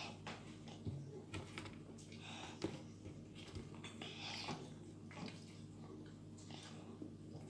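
Faint clicks and taps from a toddler handling a plastic drinking bottle and drinking from it, over a steady low hum.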